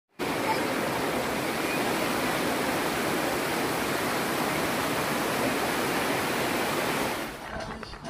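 Stream water rushing over a rock ledge in a small cascade: a steady, even rush that fades out shortly before the end.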